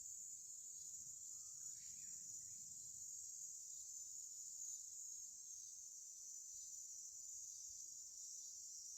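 Faint, steady high-pitched insect chorus, typical of crickets, with a brief faint bird call about two seconds in.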